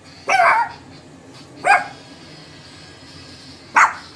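Shih Tzu barking three times: a longer bark near the start, then two short barks about two seconds apart.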